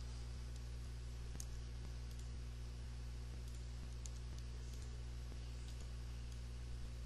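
A few faint computer mouse and keyboard clicks over a steady low electrical hum.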